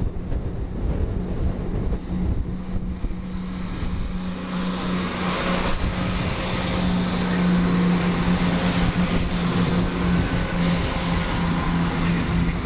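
Chiltern Railways Class 168 diesel multiple unit passing along the platform, its underfloor diesel engines making a steady drone under power. About halfway through it grows louder, with wheel and rail noise, as the carriages pass close by.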